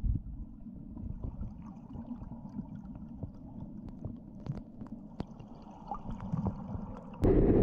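River water heard underwater: a steady low, muffled rumble with scattered small clicks and ticks. Near the end a sudden, much louder rush of water noise sets in.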